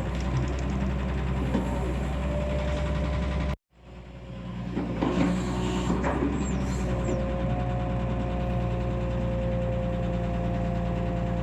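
Excavator's diesel engine running steadily, cut off abruptly for a moment a little over three seconds in, then a few metallic clanks about five to six seconds in and a steady higher whine from about seven seconds on.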